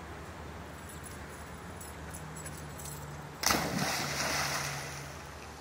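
A standard poodle landing in a dock-diving pool: a sudden loud splash about three and a half seconds in, then spray and water sloshing that die away over a couple of seconds.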